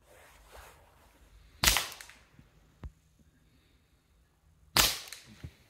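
Two shots from a .22LR semi-automatic rimfire rifle, a Ruger 10/22 variant, about three seconds apart, each a sharp crack that dies away quickly, with a fainter click after each.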